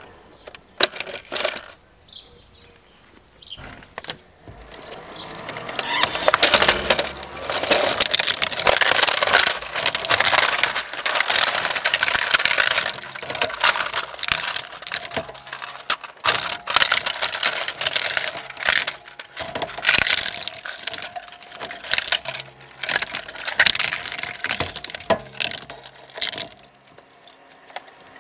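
Twin-shaft shredder's cutter discs chewing up a plastic toy buggy. After a few light knocks, dense cracking and crunching of breaking plastic starts about six seconds in and dies away near the end.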